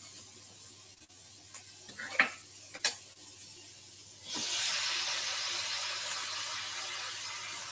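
Vegetables frying in a pan, with a few light clicks from a can being opened. About four seconds in, a sudden, louder steady sizzle starts.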